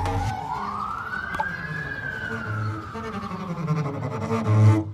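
Emergency-vehicle siren wailing in one slow sweep: its pitch dips, rises, then slowly falls and fades. Background music plays underneath.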